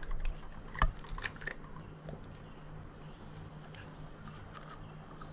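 A hen's egg cracked on the rim of a plastic bowl: one sharp crack a little under a second in, then a few quick smaller clicks as the shell is pulled apart, with faint handling ticks after.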